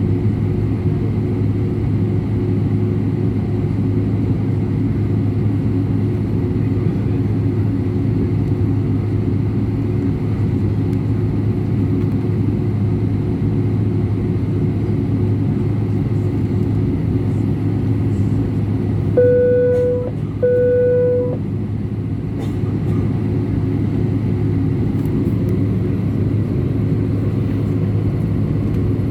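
Steady cabin rumble of an Airbus A319 airliner from its engines and airflow. About two-thirds of the way through, a cabin chime sounds twice at the same pitch.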